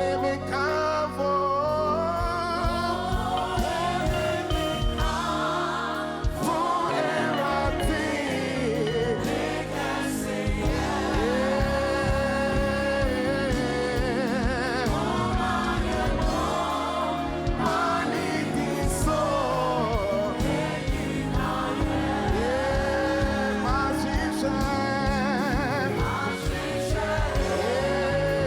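Gospel worship music: voices singing a slow worship song with held, wavering notes over steady instrumental accompaniment with a beat.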